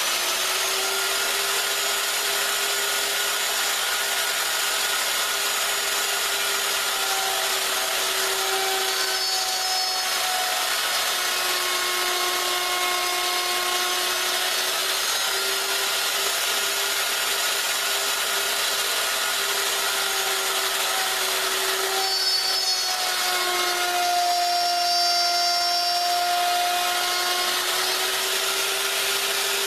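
Porter-Cable plunge router running steadily while routing mortises in a clamped board. Its motor whine sags in pitch twice under cutting load, once around the middle and again near the end.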